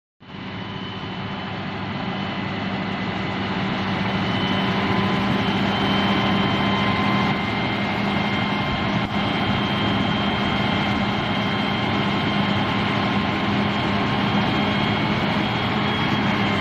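Smoke-exhausting fire-fighting robot's engine and large exhaust fan running steadily: a continuous hum and rushing noise with a few steady high whining tones, building over the first few seconds and then holding level.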